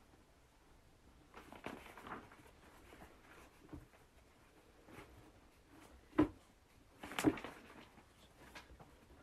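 Faint rustling and a few soft knocks and clicks in a quiet small room. There is a patch of rustling about one and a half seconds in, a sharper knock about six seconds in, and a short cluster about a second later.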